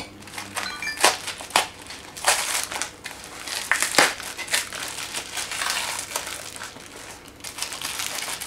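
Tape-wrapped cardboard parcel and its plastic wrapping being pulled open and handled by hand: irregular crinkling and crackling, with sharp snaps about a second in, a second and a half in, and four seconds in.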